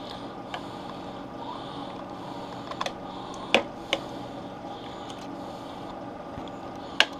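Utensil stirring chicken in a slow cooker crock, with a few sharp clicks of the spoon against the pot over a steady low hum.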